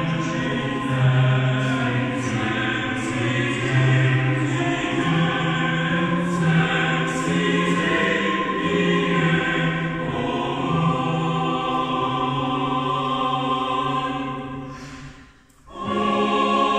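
Mixed choir of men's and women's voices singing a cappella in a church, with the low men's voices holding long notes. About fifteen seconds in the singing fades to a brief break, then the choir comes back in on a new held chord.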